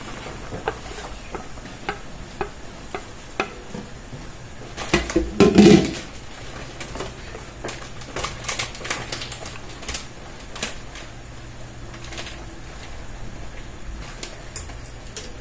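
Shredded vegetables tipped from a plate into a wok of simmering sauce, with a loud clatter about five seconds in, then a wooden spatula knocking and scraping against the wok as they are stirred, over a low simmer.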